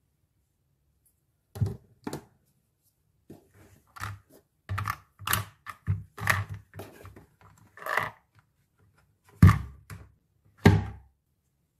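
Hard plastic toy kitchen pieces being handled and pressed into a plastic playset case: a series of separate clicks and knocks, the two loudest near the end.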